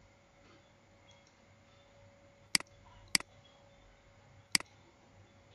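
Computer mouse clicking three times. Each click is a sharp press with a quick release just after it: the first comes about halfway through, the second about half a second later, and the third about a second and a half after that.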